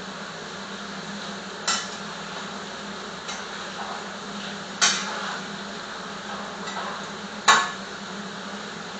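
A utensil stirring potatoes in a pot of tomato sauce, knocking sharply against the pot three times, the last knock the loudest, over a steady hiss.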